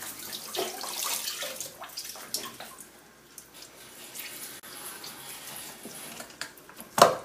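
Wet squelching and dripping as lime halves are squeezed by hand over raw goat meat in an aluminium pot. A sharp knock comes near the end.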